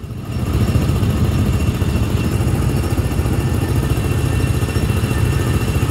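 Small gasoline engines of Tomorrowland Speedway ride cars running with a steady low rumble, growing louder about half a second in.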